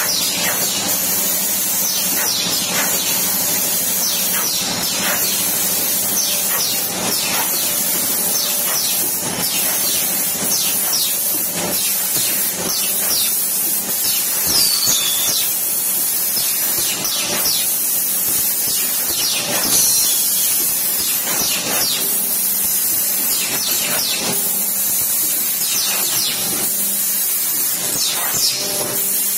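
Fully automatic hydraulic paper plate making machine running: a steady hiss and hum, with repeated clacks from its working cycle.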